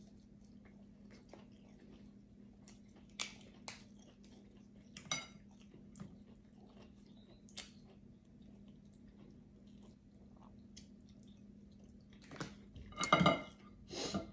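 Cooked snow crab leg shells being cracked and picked apart by hand, with scattered sharp clicks and crackles and a louder cluster of cracking near the end, and chewing in between.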